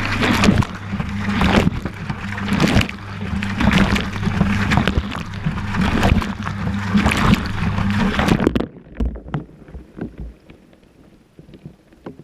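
Washing machine heard from inside its drum: the motor hums steadily while the wash water and laundry slosh and rush about once a second as the drum turns. A little over two-thirds of the way through, the motor stops and only faint drips and knocks remain.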